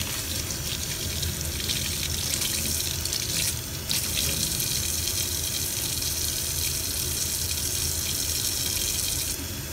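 Tap water running and splashing into a sink while a newborn baby is rinsed, the flow briefly broken just under four seconds in.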